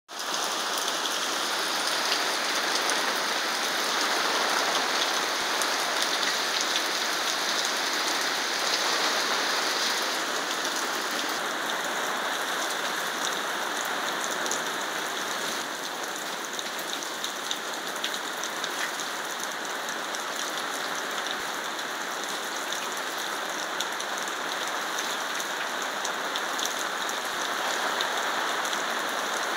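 Steady rain falling in a rain storm, heard from under a garage awning, with many individual drops ticking close by.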